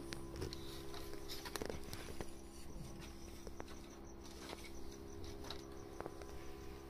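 Faint night ambience: a steady low hum with crickets chirping rhythmically in the background, and scattered small clicks and rustles from hands petting cats and handling the phone.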